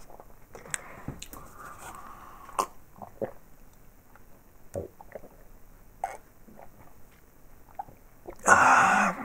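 A carton of cherry-banana nectar and a drinking glass handled on a table, with small knocks and clicks and a short pour of juice. Near the end comes one loud, short drinking sip.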